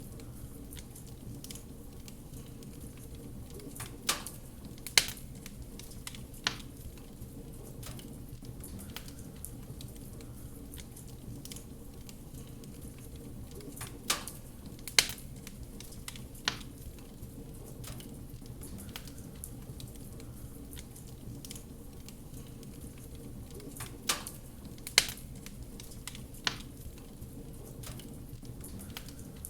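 Wood fire in a fireplace crackling: a steady low rumble with sharp pops in groups of three, the same group returning about every ten seconds.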